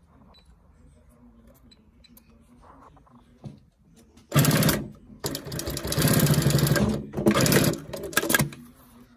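Dürkopp Adler 867 industrial lockstitch sewing machine sewing in three bursts with brief stops between them, starting about four seconds in, after a few faint clicks.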